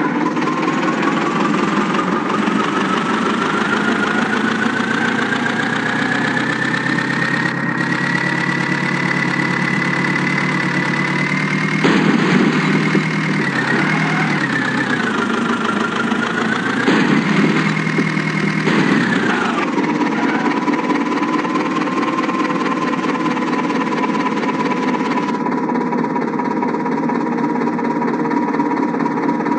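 Heavy diesel engine running, its speed rising slowly over about twelve seconds, wavering up and down, then dropping back about twenty seconds in to a steady lower speed.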